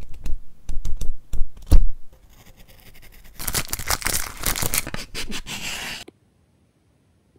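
Pages of a small paper journal being flipped, a run of quick papery taps. After a short pause comes a few seconds of dense paper rustling and crinkling as a small box of paper sticker flakes is handled, cutting off abruptly near the end.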